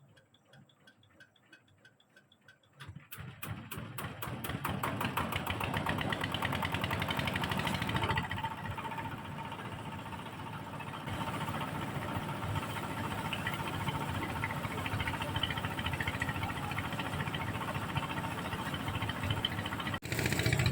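An engine starts about three seconds in, picks up speed over a few seconds, then runs steadily.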